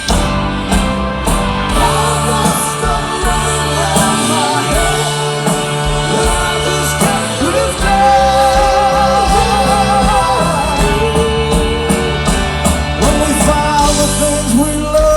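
Live rock band playing a slow passage between verses, with a wordless melodic line wavering over the chords.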